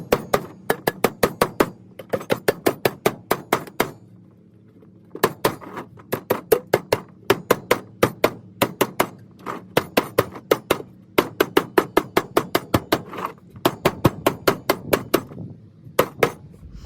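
Hammer tapping folded sheet-metal tabs flat on a round duct end cap: quick runs of sharp blows, about five a second, with a short pause about four seconds in.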